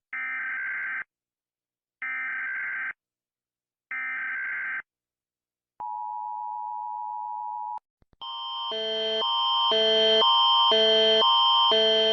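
Emergency Alert System tones: three short warbling digital data bursts about two seconds apart, the SAME header, then about two seconds of the steady two-tone EAS attention signal. From about eight seconds in, a different alert starts, a loud electronic chime alternating between notes about twice a second, growing louder.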